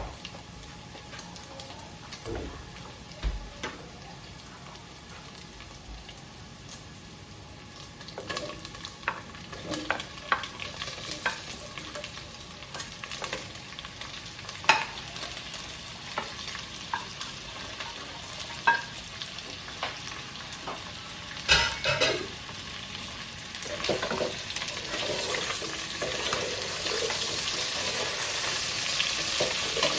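Chicken with onions and garlic frying in a pot while being stirred, the spoon knocking and scraping against the pot now and then. The sizzling grows louder over the last few seconds.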